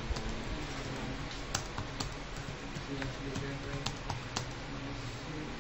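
Computer keyboard typing: irregular keystrokes, a few a second, some louder than others, over a steady background hiss.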